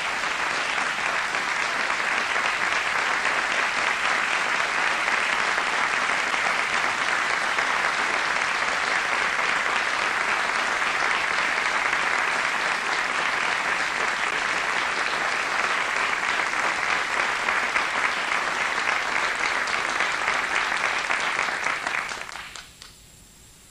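Large audience applauding, a dense steady clapping that dies away quickly near the end.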